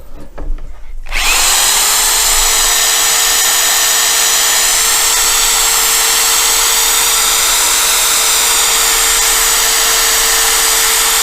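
Electric drill driving a restoration-kit pad starts about a second in, spins up and then runs steadily at one speed with a constant whine.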